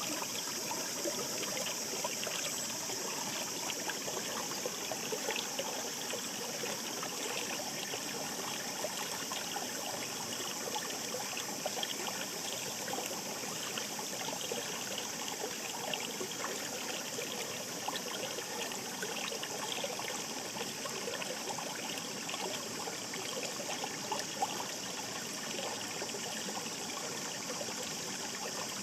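Shallow mountain stream babbling over rocks: a steady rush of flowing water, full of small gurgles and splashes.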